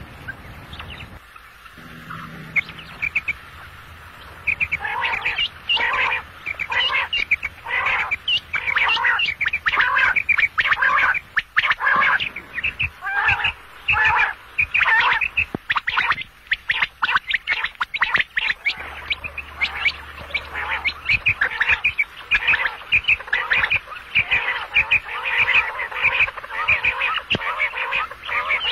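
Quail (batair) calling: rapid runs of short, repeated notes, which become dense and continuous from about four seconds in.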